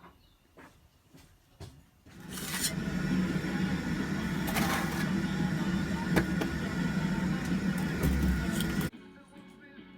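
A few faint clicks, then a motor-driven machine starts, building up over about a second. It runs loudly and steadily with a low hum for about seven seconds, then cuts off suddenly near the end.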